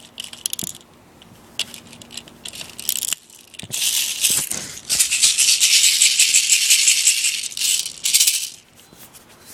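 Loose BBs rattling inside a small toy airsoft gun as it is shaken to get the ammo to feed: a few short rattles, then one long continuous rattle of about three seconds, ending shortly before the close.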